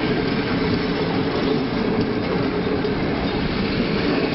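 Passenger train coaches rolling past close by: a steady, loud noise of steel wheels running on the rails.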